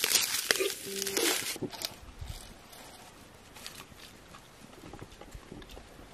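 Food-preparation handling noises: a loud crackly rustle for about the first second and a half, then fainter rustles and light clicks.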